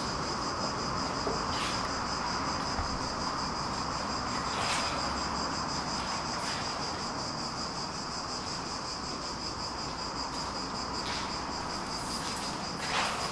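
Insects singing: a steady high-pitched drone, with a few faint clicks, the loudest near the end.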